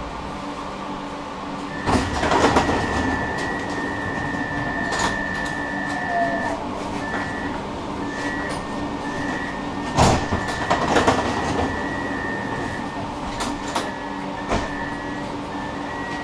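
Inside a tram: a steady electrical hum with low fixed tones, and a high beep that sounds steadily for a few seconds and then pulses on and off. A few sharp knocks and clunks come through it.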